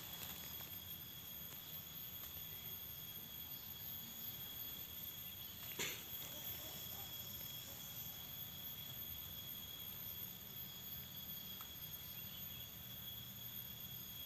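Insects singing steadily, a continuous thin high-pitched whine, with one faint click about six seconds in.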